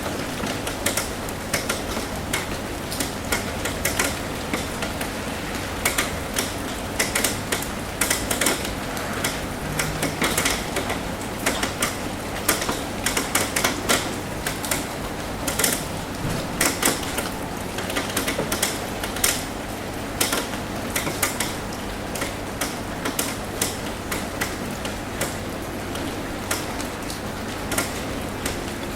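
Rain drumming on a metal roof: a steady patter under many irregular, sharper taps of single drops.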